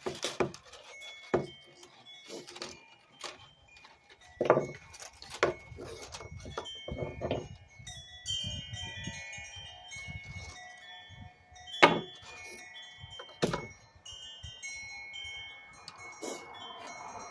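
Wind chimes ringing, with many overlapping held tones, broken by about ten sharp clicks and knocks from handling things up close.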